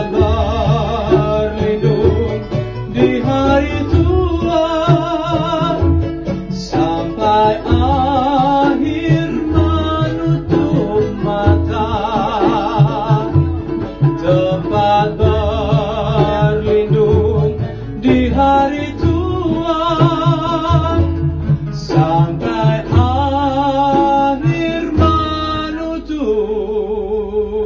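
Keroncong band playing: strummed and plucked guitars and small keroncong ukuleles over a plucked double bass, with a lead melody sung or bowed with vibrato. Near the end it settles on a held chord.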